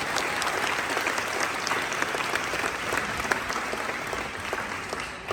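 Audience applauding: many hands clapping together, dying down near the end.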